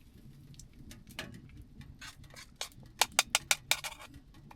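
Rhythmic clinking of a utensil against a dish. It starts with scattered light clicks, then about three seconds in settles into quick, even strokes at about five a second.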